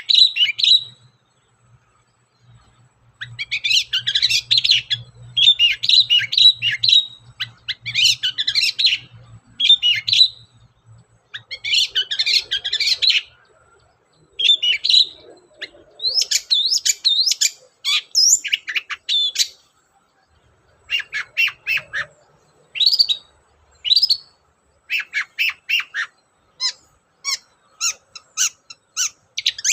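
Long-tailed shrike (cendet) singing loud bursts of rapid, scratchy chattering phrases about a second long, broken by short pauses. In the second half the song turns into series of short, sharp separate notes.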